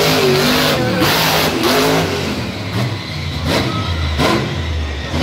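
Hurricane Force monster truck's engine revving up and down for the first couple of seconds, then running at a low, steady pitch.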